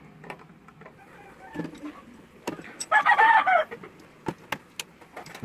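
A chicken gives one short, loud call about three seconds in, with a few sharp clicks before and after it.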